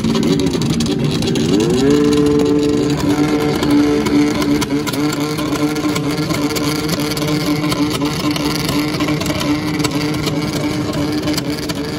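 Several two-stroke snocross race snowmobiles run together while staged at the start line. About a second and a half in, one rises in pitch and then holds a steady, higher pitch.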